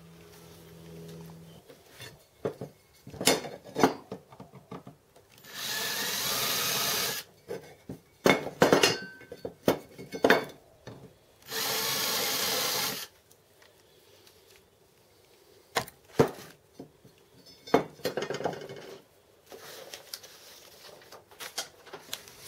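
Workshop knocks and clatter of tools and parts being handled, with two steady noisy bursts of about a second and a half each, roughly six seconds apart.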